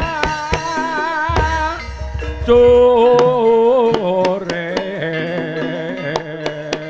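Ebeg accompaniment music in the Banyumasan style: a singer holds long, wavering notes over drum strokes and struck percussion. A deep low note sounds about a second and a half in.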